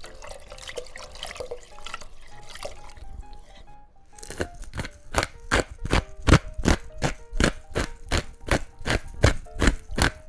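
Water pouring into a steel pot of broccoli soup while a wooden spoon stirs. About four seconds in, a run of sharp, even taps starts, about three a second, as salt is shaken into the pot.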